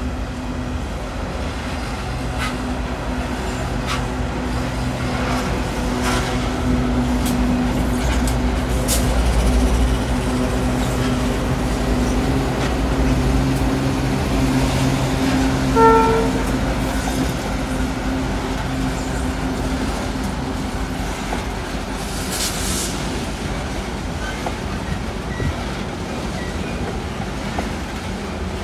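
Pacific National 93 class diesel-electric locomotives (GE C44aci) hauling a coal train past, their engines running with a steady hum, followed by coal hopper wagons rolling by with wheels clicking over the rails. A brief horn toot sounds about halfway through.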